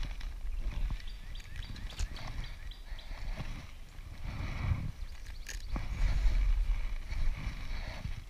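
Close handling noise of a freshly landed bass being grabbed and held: uneven rustling and scuffing with several sharp clicks and knocks over a low rumble, loudest about six seconds in.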